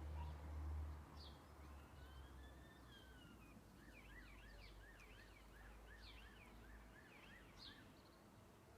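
Faint Eurasian blackbird song mimicking a police siren: one slow rising and falling wail, then a quick run of up-and-down yelps at about three to four a second, with a few short high chirps among them.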